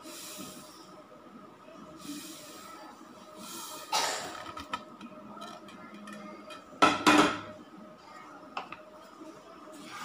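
Sesame seeds poured from a plate into a dry non-stick pan with a soft rustling hiss, plus kitchenware clattering; the two loudest clatters come about four and seven seconds in.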